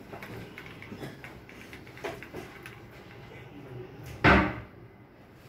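A single short, loud thump about four seconds in, over faint scattered clicks and room sound.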